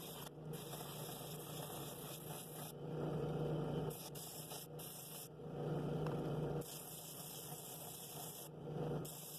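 Drill press running a sanding drum against the inside of a cherry wood bowl: a steady motor hum with sanding noise that swells three times, for about a second each, as the wood is pressed harder against the drum.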